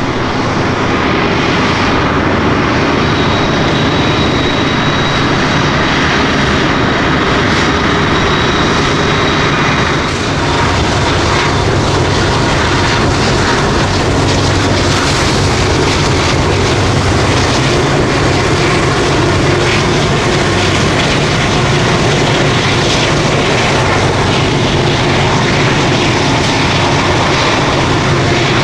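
Small camera drone's propellers whirring steadily and loudly, with no break across the change of view.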